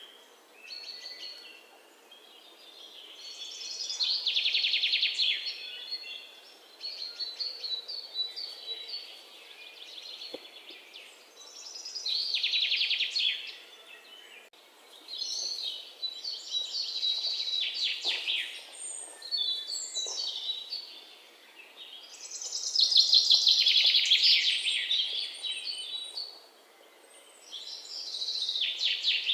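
A songbird singing: a loud, fast trilled phrase of about two seconds repeated every several seconds, with softer high chirps between the phrases.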